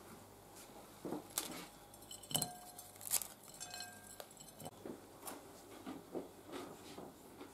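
Crusty sesame-coated Greek Easter bread ring (koulouri) broken apart by hand over a china plate: a string of sharp crackles and knocks, with the plate clinking and ringing briefly a couple of times, then fainter clicks.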